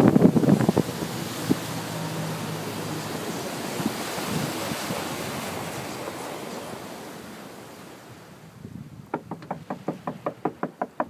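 Wind buffeting the microphone over open water, loudest in the first second and fading away. Near the end a regular run of sharp knocks starts, about four a second.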